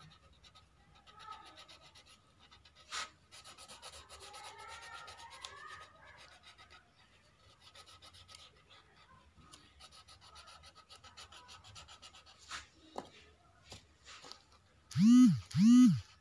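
Faint scratching of a coloured pencil shading on paper, in repeated short strokes with a few light taps. Near the end come two loud, voice-like hoots, each rising and then falling in pitch.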